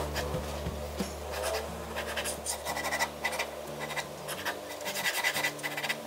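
Pen sketching on paper: quick, repeated strokes scratching across the sheet, one after another in an uneven rhythm.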